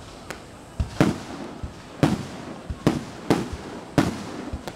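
Fireworks bursting overhead in quick succession: about seven sharp bangs in under five seconds, each trailing off in a short rumble.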